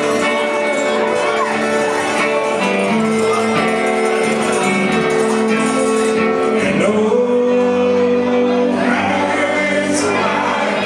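Live country band playing a song, electric guitar among the instruments.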